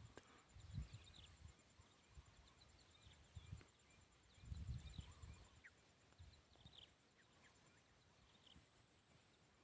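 Near silence: faint outdoor ambience with scattered short high chirps, a thin steady high tone and a few soft low thumps.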